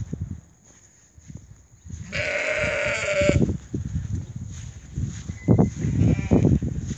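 A sheep bleating once, loud and a little over a second long, about two seconds in. Low irregular thuds of someone walking across the grass run around it.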